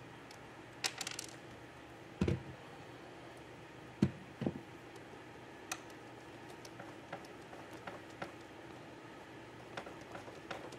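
Scattered handling noises: clicks and knocks, the loudest about two and four seconds in, as parts are worked by hand into holes in the boat's splash well. A steady low shop hum sits under them.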